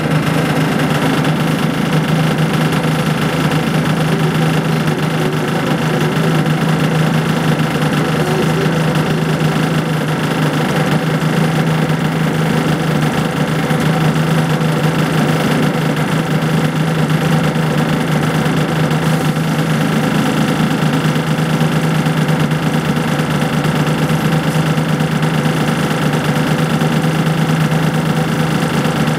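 Volvo B10BLE bus's rear-mounted six-cylinder diesel engine idling steadily, heard from the rear seats inside the saloon.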